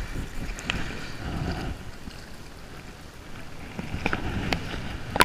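Wind buffeting the microphone over gentle surf lapping on a sand beach, with a few sharp clicks scattered through.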